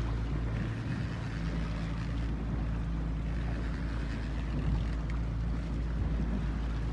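Boat engine running steadily with a low hum, under a steady rush of wind on the microphone.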